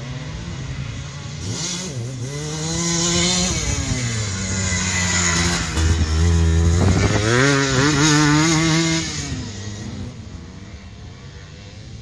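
Enduro motorcycle engine riding through a dirt-track turn. It grows louder as it approaches, with the pitch rising and falling as the rider works the throttle and gears. It is loudest about six to nine seconds in, then fades as the bike rides away.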